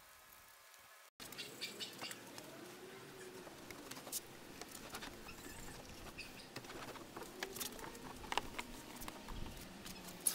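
Near silence for about a second, then faint rubbing and light scuffs of a microfiber towel wiping down a wet truck door, with a faint wavering tone underneath.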